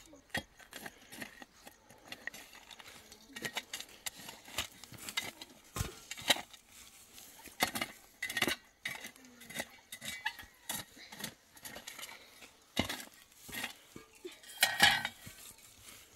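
Irregular clinks and knocks of hard objects, a second or so apart, the loudest near the end.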